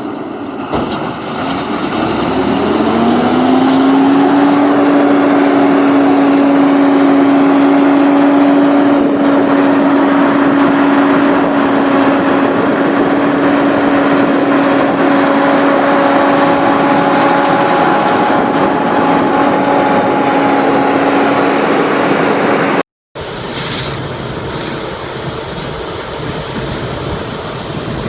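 Big combine harvester diesel engine coming up to speed, its pitch rising over the first few seconds and then holding a loud, steady hum. About 23 seconds in there is an abrupt cut to a quieter, steadier machine run.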